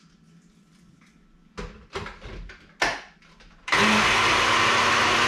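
Personal bullet-style blender grinding a spice paste: after a few clattering knocks as the jar is handled and set on the base, the motor starts suddenly about three and a half seconds in and runs with a loud, steady whir.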